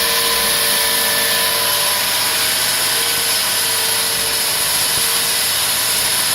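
Concrete wall saw running steadily, its diamond blade making a flush cut through a thick concrete wall: a continuous loud hiss with a faint steady whine underneath.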